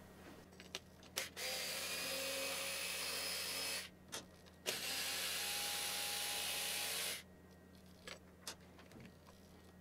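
Small power screwdriver running twice, each time for about two and a half seconds, backing out the screws holding a plastic part on a 3D printer's hotend carriage; a few light clicks of handling between and after.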